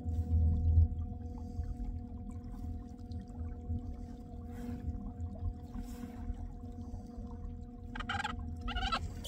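Island Hopper electric kayak trolling motor running at a steady speed with a constant whine, over water and rumble noise that drops off about a second in. Near the end, two short pitch-bending calls.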